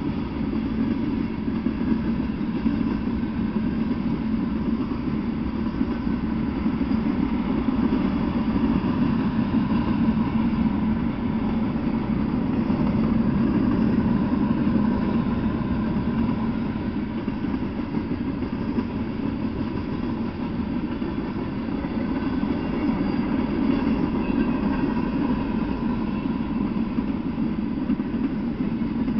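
Freight cars of a mixed freight train rolling past at speed: a steady, continuous noise of steel wheels running on rail.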